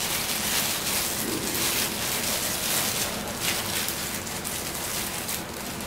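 White plastic bag rustling and crinkling as hands dig into it to pull out a toy, a steady hissy crackle with irregular louder crinkles.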